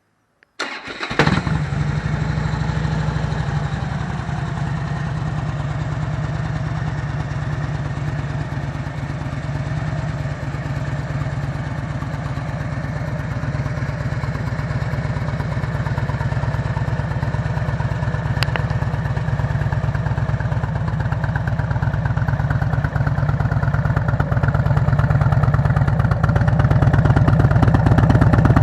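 A vehicle engine is started about half a second in and catches at once. It then settles into a steady idle with a rapid, even firing pulse. It grows a little louder toward the end, with a single sharp click about two-thirds of the way through.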